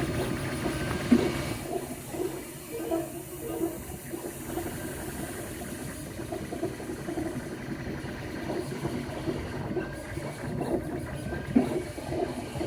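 3D printer at work: its motors give short, irregular whirring notes over a steady hiss.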